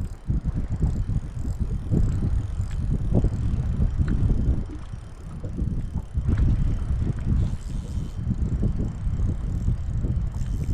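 Wind buffeting the microphone: a loud, gusty low rumble that swells and fades, easing briefly about halfway through.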